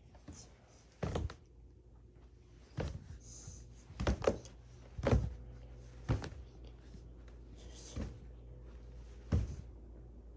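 A series of dull thuds and knocks, about eight, spaced irregularly, with a low steady hum underneath that grows a little louder about halfway through.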